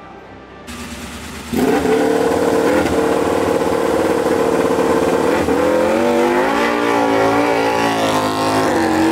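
Aprilia MotoGP bike's V4 engine running loud, starting about a second and a half in. It holds one steady pitch for a few seconds, then the revs rise and fall as the bike moves off.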